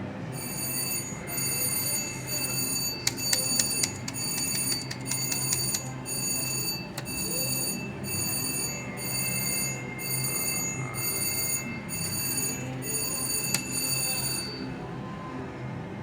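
Slot machine's electronic bell-like ringing, pulsing about twice a second, with a few sharp clicks a few seconds in. It stops about a second and a half before the end, leaving a steady low hum.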